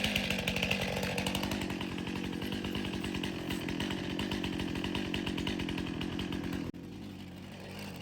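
Chainsaw idling with a steady, even pulse, just after the revs have dropped. Near the end it cuts off suddenly, leaving a faint steady hum.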